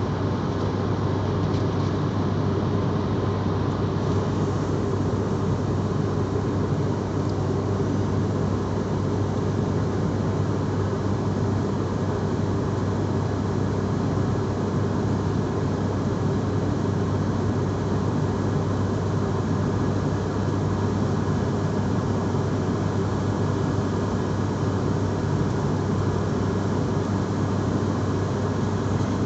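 Airplane engines running with a steady drone: a strong low hum under an even rush of noise that does not change.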